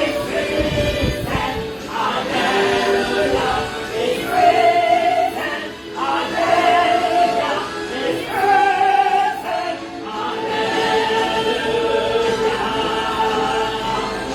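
Church choir singing: phrases of held notes with short breaks between them.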